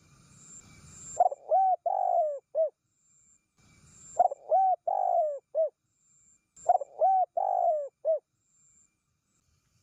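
Spotted dove cooing: three phrases about two and a half seconds apart, each of about four low coos with a longer falling coo in the middle. This is the call used to lure wild spotted doves.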